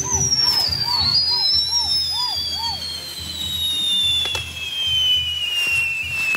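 Whistling fireworks: one long whistle slides slowly down in pitch throughout, while short chirping whistles repeat about three times a second over the first few seconds. A single sharp crack comes about four seconds in.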